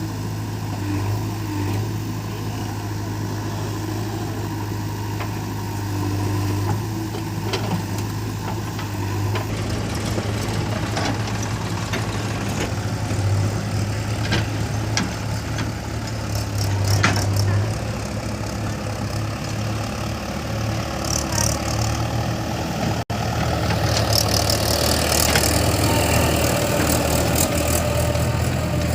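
Diesel engines of a JCB 3DX backhoe loader and a Mahindra 475 DI tractor running steadily, with scattered knocks and clatter. After a sudden break a little past two-thirds of the way through, the engine note is lower and louder.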